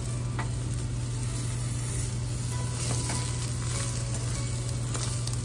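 Egg omelette sizzling in a non-stick frying pan while a spatula folds it, with a couple of light spatula scrapes against the pan. A steady low hum runs underneath.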